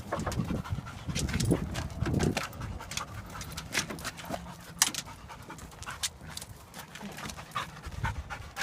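A dog panting while it works a scent search, with scattered sharp clicks and ticks throughout.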